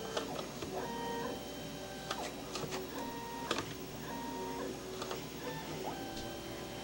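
The pan and tilt stepper motors of an OTIMA SAB11237NE speed-dome PTZ camera whine through a series of short moves, each one's pitch ramping up as it starts and down as it stops. A few small clicks come between the moves.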